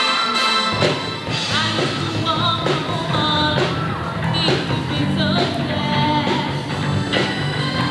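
Live rock band playing with a singer on a microphone over drums. The bass and the full band come in just under a second in.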